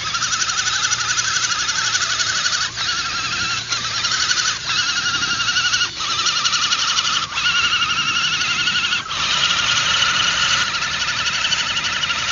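Electric motors and gearboxes of RC scale crawler trucks whining steadily under throttle as they crawl through mud, the pitch wavering with the load and dropping out briefly a few times.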